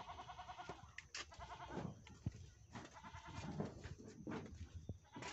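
Farm animals calling: several quavering cries in quick succession in the first few seconds.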